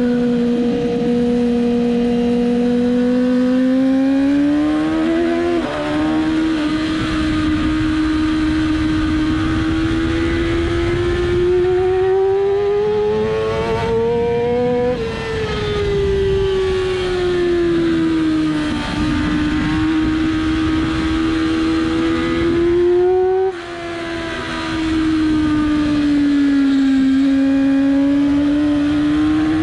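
2007 Yamaha R6's inline-four engine heard onboard at race speed, its pitch climbing under acceleration and falling again as the throttle is eased, several times over. A brief drop in the sound comes about two-thirds through.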